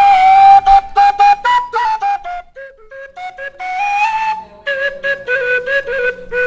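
Solo Colombian gaita, the cane duct flute of the Montes de María, playing a melody in short, separately tongued notes that step up and down in phrases.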